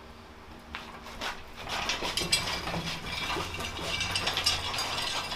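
Dense metallic rattling and clicking from a cherry picker (engine hoist) and the slung surface grinder as the load is shifted, starting about two seconds in over a low rumble.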